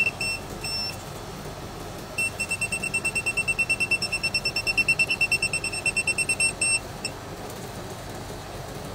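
Gas leak detector (TOPTES PT199) alarm beeping in a high tone as its sensor picks up gas at a stove burner. A few beeps, a pause of about a second, then a fast, even run of beeps for several seconds that stops about seven seconds in.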